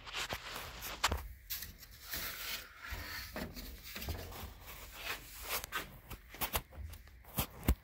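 Close handling noise: rubbing and rustling with scattered sharp clicks, the loudest clicks in the last second or so.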